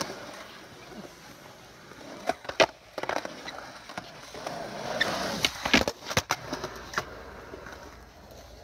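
Skateboard wheels rolling on smooth concrete, with sharp clacks of the board hitting the ground: a pair about two and a half seconds in, a quick cluster between about five and six seconds, and one more near seven seconds.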